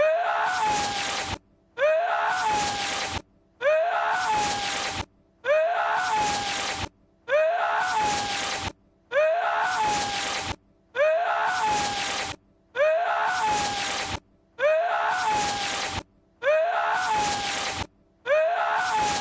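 Lord Voldemort's sneeze-like voiced cry from a film clip, looped over and over: the same short breathy cry, with a pitch that rises and then holds, repeats roughly every two seconds with a brief silence between repeats.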